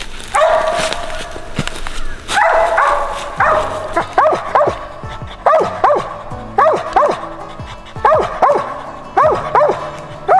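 Squirrel dog barking treed at the foot of a tree: short, sharp barks, often in quick pairs, a few per second, after two longer drawn-out calls at the start. The dog is signalling that it has a squirrel up the tree.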